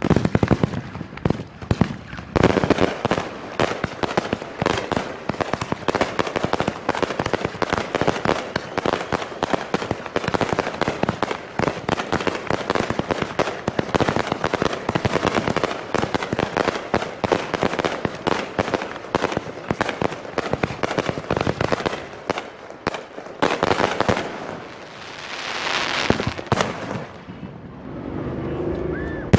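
Aerial fireworks going off in a rapid, continuous barrage of bangs and crackles, thinning out near the end.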